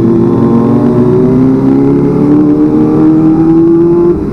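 Kawasaki ZX25R inline-four motorcycle with a racing exhaust, running under steady acceleration with the engine pitch climbing slowly, then dropping briefly near the end before steadying at a lower pitch.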